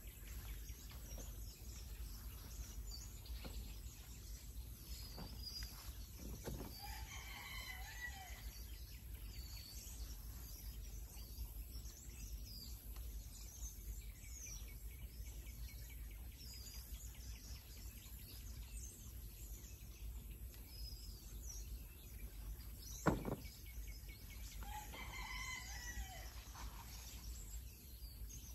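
A rooster crowing twice, once about eight seconds in and again near the end, over light chirping of small birds. A single sharp click sounds shortly before the second crow.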